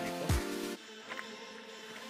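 Background music with a beat of deep, quickly falling kick drums over held tones; the beat stops about three-quarters of a second in, leaving a quieter passage.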